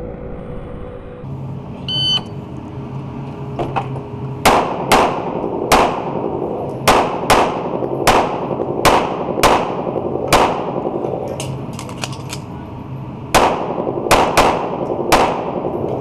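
Short electronic shot-timer start beep, then a CZ-75 Compact 9mm pistol fired rapidly in an indoor range, each shot ringing off the walls. About a dozen shots come in two strings with a pause of about three seconds between them.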